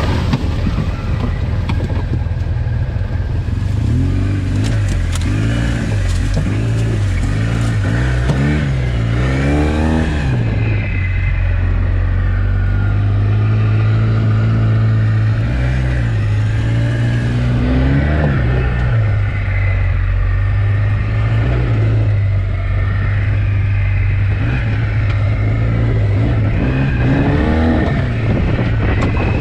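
Polaris RZR side-by-side's engine running while driving, revving up and down several times with steadier stretches in between.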